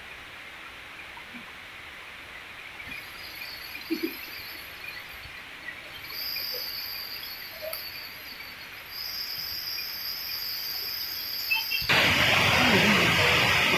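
Forest insects drone at a steady high pitch, starting a few seconds in and breaking off briefly a couple of times, with a few soft knocks underneath. Near the end a much louder, steady rushing noise cuts in suddenly.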